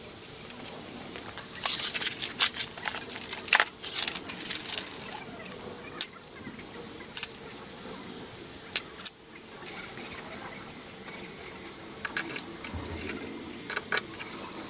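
Scattered clicks, knocks and light rattling, with a busy cluster about two to five seconds in and another near the end; no motor running.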